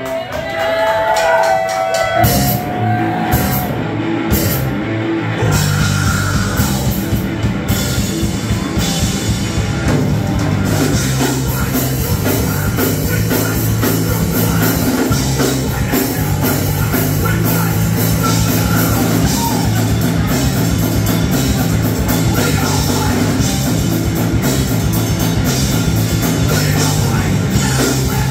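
Live rock band playing loudly through a club PA. It opens with a held guitar note and a few sharp drum hits, and the full band comes in about two seconds in with guitars, bass and drums pounding along.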